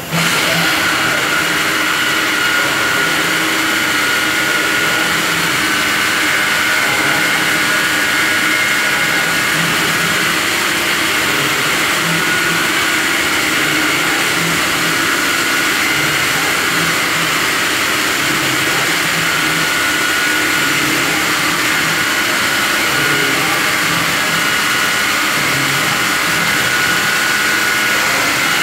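Masterwood Project 300 V2 CNC router running: a loud, steady machine noise with a high whine that comes and goes.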